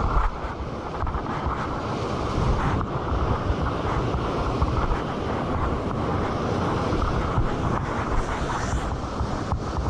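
Wind buffeting the microphone over the steady wash of waves breaking on a rocky shore.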